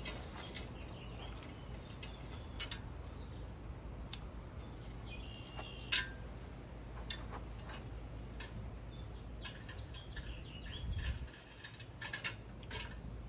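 Scattered light metallic clicks and clinks from a sheep stand's head yoke and chain being handled while a ram is secured.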